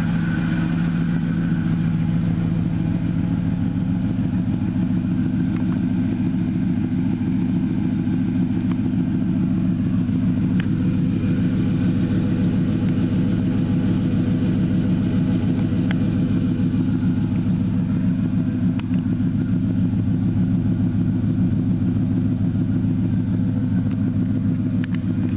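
A Ford F-150 pickup's engine idling steadily through an aftermarket exhaust with several large chrome tips, its sound low and even with no revving.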